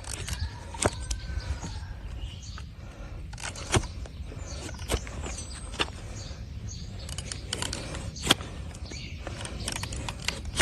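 Hoof knife cutting and scraping a donkey's hard, overgrown hoof horn: irregular sharp clicks and scrapes, a few seconds apart.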